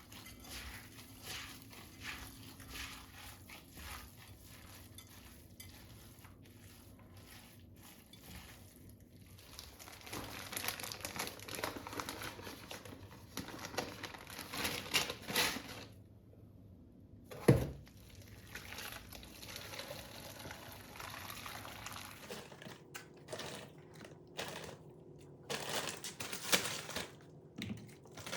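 Kitchen handling sounds: dishes and utensils clinking and being set down, with rustling and swishing, and one heavier knock a little past halfway.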